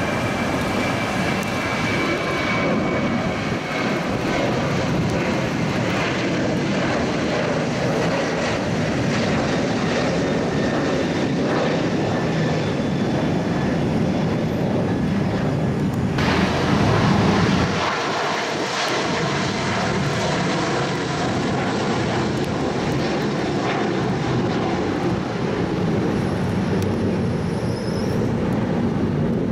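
Jet engines of departing airliners climbing out at takeoff power: a steady rumble with a faint whine, first from an Air China Boeing 737-700. About halfway through the sound changes abruptly to a second climbing jet, a Spirit Airbus A320-family airliner.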